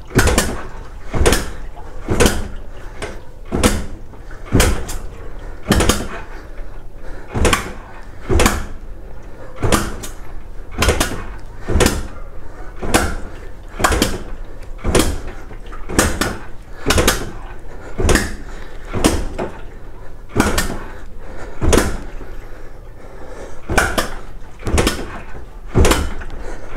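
A motorcycle kick starter is pumped over and over, about one stroke a second, turning the engine over with the spark plug out to work carbon cleaner through the cylinder.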